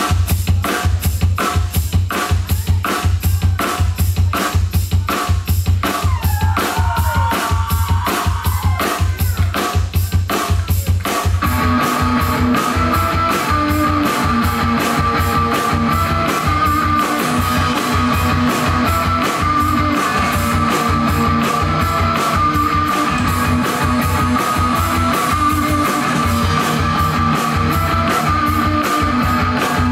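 Live rock duo of drum kit and electric guitar playing. A fast, steady drum beat opens with sliding guitar notes over it, and about eleven seconds in the guitar comes in with full, sustained distorted chords over the drums.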